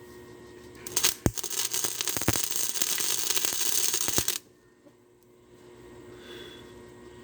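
Welding arc crackling and spitting in a short burst of about three and a half seconds as a bead is laid on thin junk pipe, starting about a second in and cutting off suddenly when the trigger is released.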